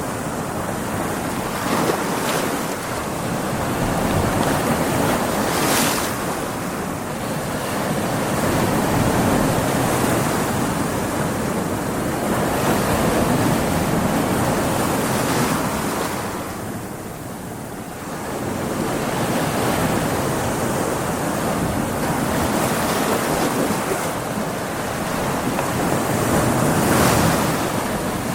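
Stormy sea: heavy waves breaking and washing in continuously, with wind. The surge eases for a couple of seconds a little past the middle, then builds again, with sharper crashes of spray now and then.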